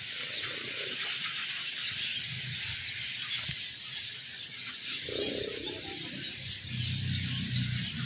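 A flock of Asian glossy starlings (kuling) calling together in a tree, a steady mass of high-pitched twittering and chatter. A low rumble joins about five seconds in.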